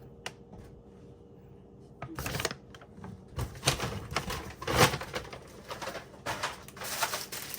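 Plastic grocery packaging being handled, rustling and crinkling in short irregular bursts after a brief quiet start.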